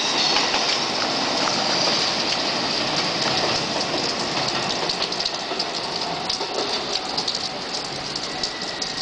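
Train running past on its tracks with a steady clatter, slowly fading. Rain pattering comes through with sharp ticks in the second half.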